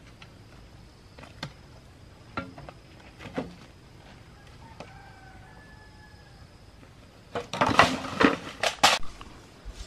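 A few scattered knocks, then a quick run of loud knocking and clattering, like objects being handled and set down, about three quarters of the way in. A faint drawn-out call sounds in the middle.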